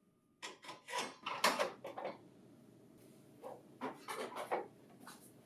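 Plastic lower output bin of a printer's staple hole-punch finisher being slid and clicked into place. There is a quick series of plastic clicks and knocks, a pause, and then a second shorter series.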